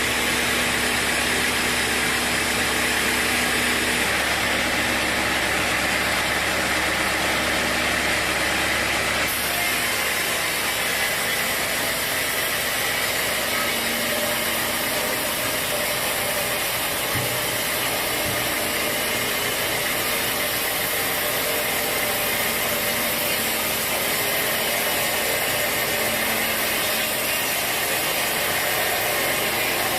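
Sawmill saw machinery running steadily. Its tone shifts about nine seconds in, becoming hissier and losing its low hum.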